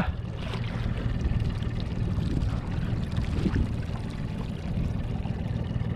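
Mercury outboard motor running slowly in gear, a steady low hum, with water sloshing and splashing against the boat and the landing net.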